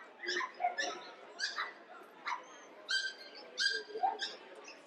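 A dog barking in a run of short, high-pitched yaps and yips, about eight in under five seconds.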